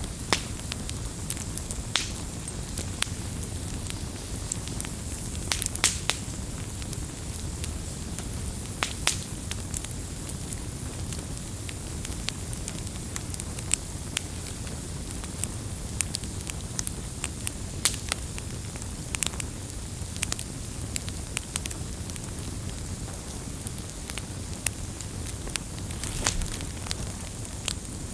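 Firewood burning: a steady low rumble and hiss of the flames with sharp, irregular pops and crackles from the logs.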